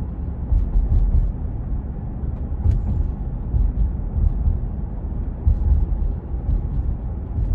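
Steady low road and engine rumble of a truck driving at the speed limit, heard from inside the cab, with a few faint ticks.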